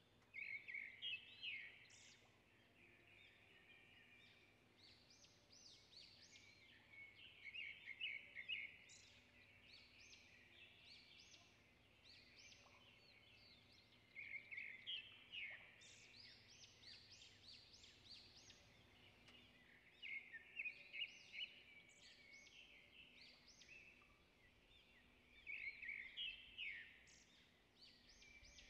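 Birds chirping in repeated bursts of quick, high calls.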